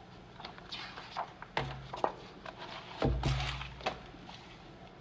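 Hardcover picture book being handled and closed on a countertop: rustles and small clicks of the pages and cover, with two soft thumps about one and a half and three seconds in, the second the louder.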